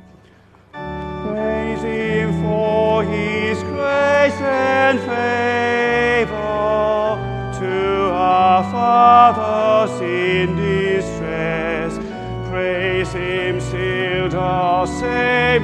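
Congregation singing a hymn to pipe organ accompaniment, starting about a second in after a brief pause.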